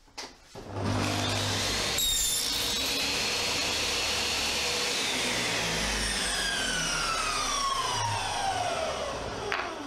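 Table saw starting up about a second in and crosscutting a wooden strip on a sled. It is then switched off, and the blade winds down with a steadily falling whine over the last few seconds.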